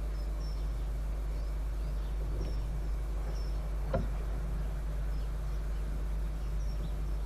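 Distant Class 50 diesel locomotives' English Electric 16-cylinder engines giving a steady low drone as they approach. Small birds chirp briefly every second or two over it, and there is one sharp click about four seconds in.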